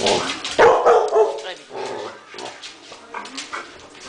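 Two West Highland white terriers barking in a play tussle over a toy, the loudest barks about a second in, then shorter, quieter yaps.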